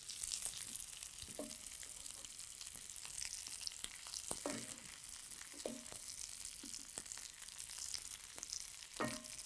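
Food frying softly in pans on the hob, a steady light sizzle. A few short knocks and scrapes of a wooden spatula against the pan and plate as food is served out.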